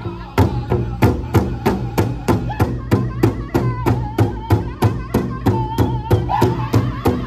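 Powwow drum group striking a large hide-covered drum in unison with padded beaters, a steady beat of about three strokes a second, under the group's high-pitched singing.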